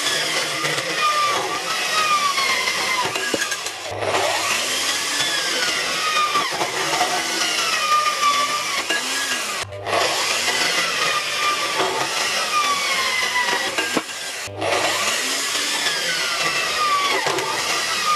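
Metal-cutting band saw running and cutting through a painted metal square-tube chair leg, a steady rasping with a ringing whine from the blade that slides up and down in pitch. The sound breaks off abruptly three times and picks up again the same way, as one cut follows another.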